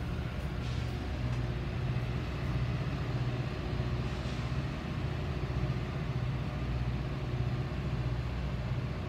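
Steady low rumble and hum of a stainless-steel commuter rail car, heard from inside its vestibule.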